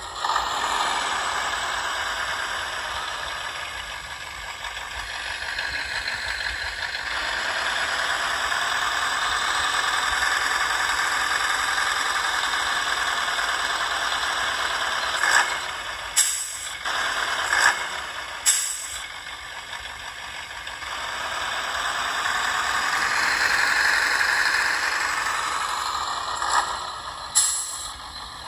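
Truck engine sound from a DasMikro TBS Mini sound module, played through the RC model's small 3-watt, 8-ohm speaker. The engine runs and swells louder twice as if revved, then settles back. Several short sharp sounds come around the middle and again near the end.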